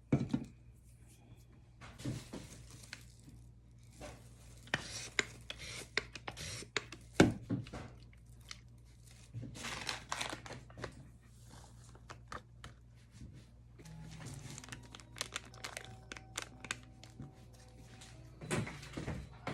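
Hands handling materials and containers at close range: crinkling and tearing sounds with sharp knocks and clicks scattered through, over a low steady hum. Faint music comes in during the second half.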